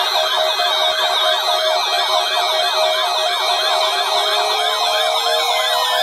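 Midland NOAA weather radio sounding its siren alert for a required weekly test: a loud, rapid up-and-down warble of about four sweeps a second over a steady tone, with a second tone slowly rising in pitch in the latter half.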